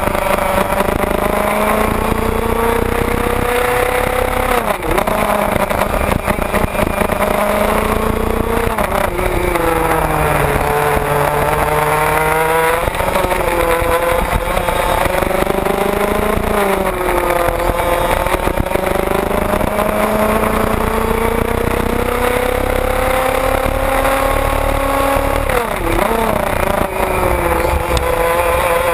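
IAME Parilla 125cc two-stroke kart engine at race pace, heard from onboard. Its pitch climbs steadily down each straight and drops sharply into each corner, several times over, with a second engine close behind at times.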